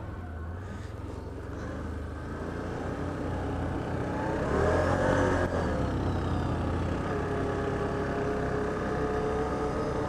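ATV engine running while riding on a dirt trail, speeding up about halfway through with a rise and fall in pitch, then holding a steady pitch.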